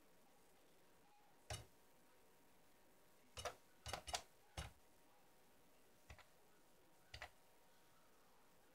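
Sharp clicks of keys being pressed on a home computer keyboard, irregularly spaced, with a quick run of four about three to four and a half seconds in and single ones before and after, over near silence.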